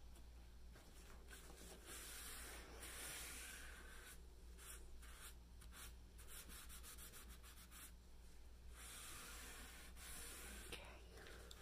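Faint, intermittent rubbing and scuffing on a surface, coming in short stretches of a second or so.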